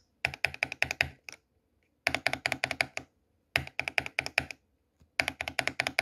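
Mechanical keyboard keys on Alpaca V2 linear and Durock T1 tactile switches being pressed rapidly, with a steel bearing ball placed inside each switch. The sound is four quick runs of key clicks, each about a second long, separated by short pauses.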